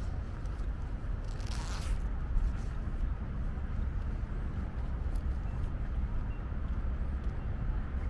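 Wind buffeting the microphone, a steady low rumble, with a brief rustling hiss about a second and a half in.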